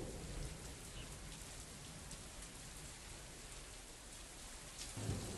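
Steady hurricane rain: an even hiss with a low rumble underneath.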